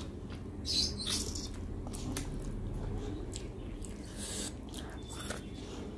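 Close-up eating noises: chewing with a few short, sharp wet smacks of lips and fingers, about a second in and again near the end.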